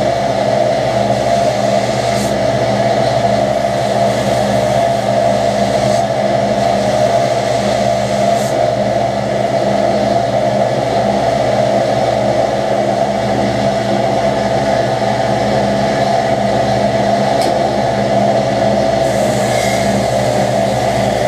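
A motor-driven shop machine running steadily at constant speed, a loud even drone with a few faint ticks.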